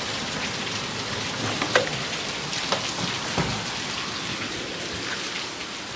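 Heavy rain pouring down steadily, with a few sharper, louder drops striking close by every second or so.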